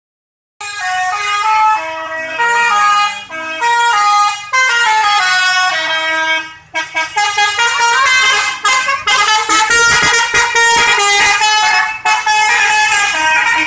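Bus telolet horn: a multi-tone musical horn playing quick melodic phrases of held notes that step up and down in pitch, with short breaks between phrases and a low steady engine hum underneath.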